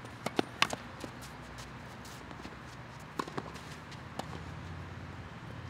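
Tennis rally on a clay court: sharp knocks of rackets striking the ball and the ball bouncing, a quick cluster in the first second and a few more about three and four seconds in.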